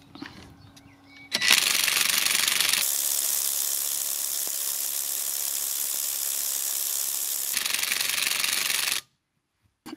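Parkside PASSK20 20V cordless impact wrench hammering steadily on a car wheel nut. It starts about a second and a half in and cuts off abruptly about nine seconds in. Set to 150 Nm, it fails to break loose a nut tightened to 100 Nm.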